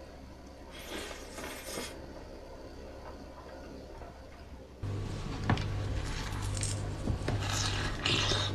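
Eating-ASMR clinking and crackling against a dish, with a short hissy burst about a second in. About five seconds in it gets suddenly louder, with sharp clicks over a low steady hum.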